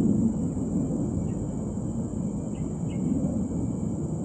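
Low rumbling background noise. Over it, a few short bird chirps come from behind the bushes: once about a second in and twice just before three seconds. A faint steady high insect drone runs underneath.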